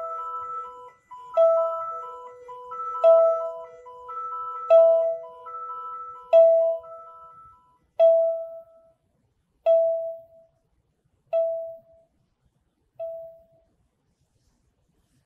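Stage music made of chime-like tones. One ringing note repeats about every second and a half over a pulsing higher note and a held lower note. The accompanying notes drop out about halfway through, and the lone chime note goes on a few more times, fainter each time, then stops.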